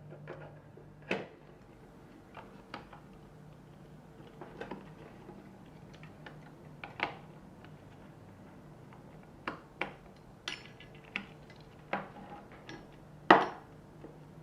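Hard plastic and metal parts of a Hitachi Magic Wand massager clicking and knocking as they are handled and fitted together during reassembly: scattered irregular clicks, with the loudest knock near the end.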